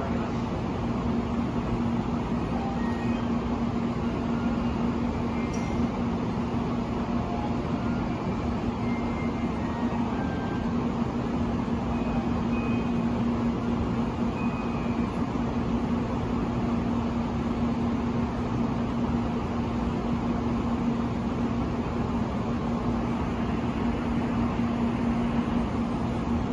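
Steady hum and rushing noise from a standing Shinkansen train's onboard equipment, a constant low drone that holds level throughout.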